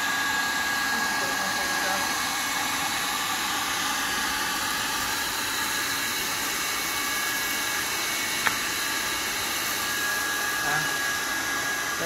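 Dirt Eater H-class cyclonic industrial vacuum running steadily, sucking through its floor tool as it is pushed over a concrete floor, with a steady high motor whine. A single sharp click about two-thirds of the way through.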